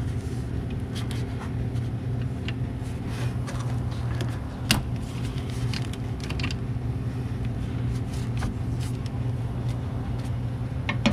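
Light clicks and taps of steel brake lines being bent by hand and worked into the ports of a brake master cylinder, with one sharper click a little under halfway through. A steady low mechanical hum runs underneath.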